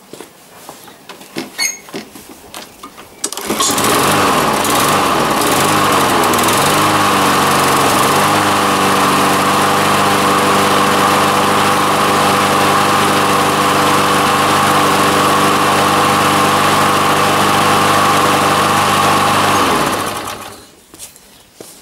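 Briggs & Stratton 750 Series DOV 161 cc single-cylinder mower engine catching on a single pull about three seconds in, with no priming or choking, on its first start after a complete rebuild. It runs steadily, its pitch wavering briefly just after it catches, then it is shut off near the end and runs down to a stop.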